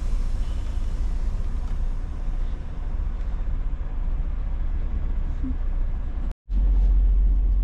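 Freightliner Cascadia semi-truck's diesel engine running with a steady low rumble, heard from inside the cab. About six seconds in, the sound cuts out for a moment and comes back as a louder, steadier low engine hum.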